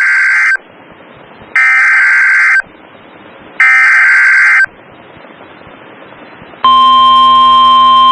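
Emergency Alert System SAME header: the end of one burst of screeching data tones and then two full bursts, each about a second long, with about a second of hiss between them. About two seconds after the last burst, the long steady attention tone begins. Together these are the warbling data header and alert tone that announce an emergency alert, here a tornado warning.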